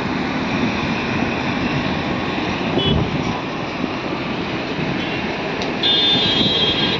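Steady road traffic noise from cars and trucks moving slowly along a highway. A short high tone sounds about three seconds in, and a louder, shrill high tone is held for about a second near the end.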